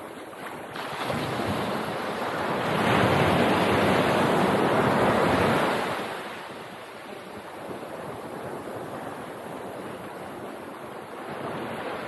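Sea surf washing on the beach with wind on the microphone. The rush swells to its loudest for about three seconds in the middle, then falls back.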